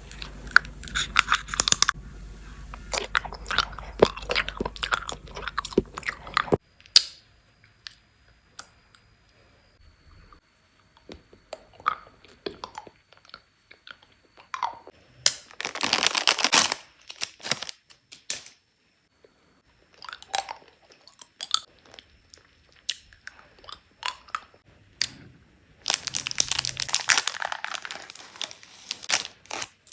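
Candy and chocolate being chewed and crunched in the mouth, in spells. A dense run of crisp crunching stops abruptly after about six seconds; then come scattered clicks, with further bursts of crunching around the middle and near the end.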